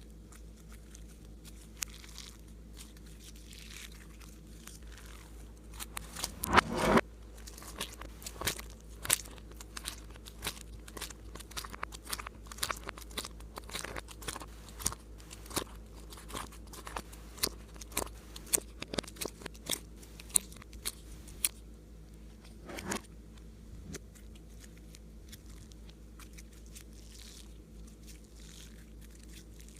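Slime being squished and worked by hand, giving a run of small sharp clicks and crackly pops. The clicks start about a fifth of the way in, bunch up for most of the middle with a louder squelch near the start of that run and another later, then thin out near the end.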